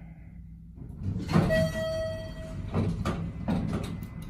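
Elevator car doors sliding. About a second and a half in, a steady tone sounds for a little over a second. Near the end come a few clicks as the door-close button is pressed.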